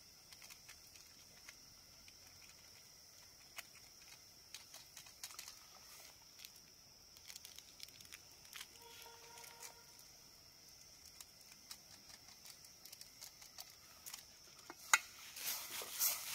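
Faint scattered crackles and ticks from a pot of Maggi noodles cooking over a campfire, over a steady high hiss, with sharper, denser clicks near the end.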